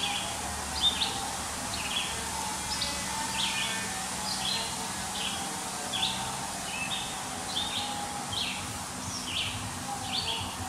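Bird chirping over and over, short high calls that drop a little in pitch, roughly every half second, over a steady outdoor background hum.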